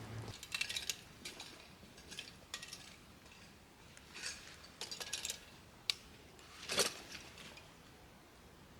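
Scattered light clinks and clatters of small hard objects being handled, with a sharp click about six seconds in and a louder knock just before seven.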